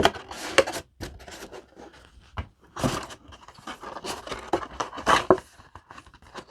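Cardboard mini boxes being shifted and slid against each other and the display box: irregular scraping and rubbing of cardboard with a few sharper scuffs.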